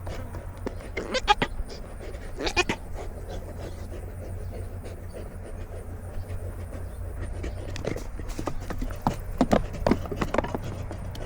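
Nigerian Dwarf goat sounds heard from a camera worn on a goat: a few short bleats and scattered knocks from her movement over a steady low rumble.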